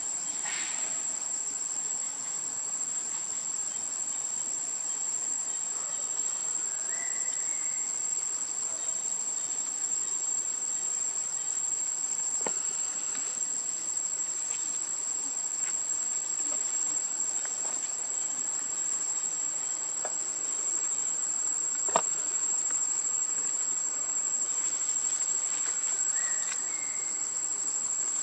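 A steady, high-pitched insect drone holding one pitch, the continuous call of crickets or cicadas in forest undergrowth. A single sharp click stands out about three-quarters of the way through.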